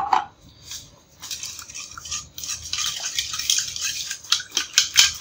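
Wire hand whisk beating an egg and milk mixture in a metal pot: a fast, continuous clinking and scraping of wire against the pot's sides. A few separate taps come first, and the steady whisking starts about a second in.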